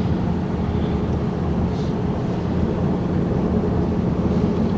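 Steady low rumble of road and engine noise inside a car's cabin while it drives along a mountain highway.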